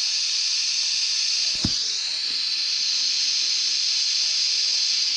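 TIG welding arc on exhaust tubing: a steady hiss, with one short knock about one and a half seconds in.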